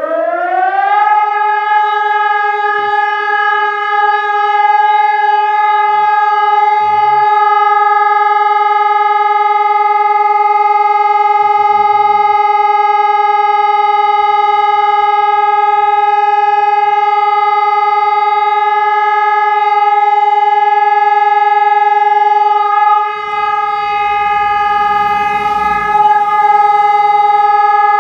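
Civil-defence warning siren sounding in a test alarm: it finishes winding up in pitch in the first second, then holds one loud, steady tone. A few seconds of rumbling noise rise under it near the end.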